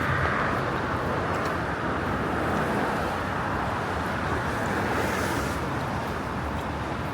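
Steady hiss of street traffic on a rain-wet road, tyres swishing on the wet surface, swelling slightly near the start and again about five seconds in.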